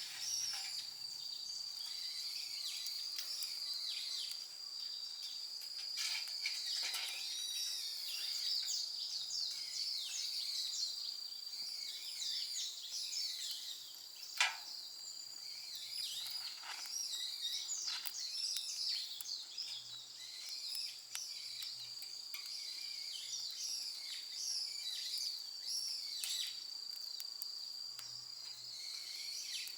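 Woodland birds chirping and calling over a steady, high insect drone, with one sharp snap about halfway through.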